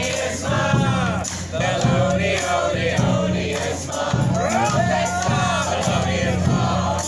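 New Orleans-style second-line brass band playing, with a repeating bass line under bending horn lines and many voices singing along.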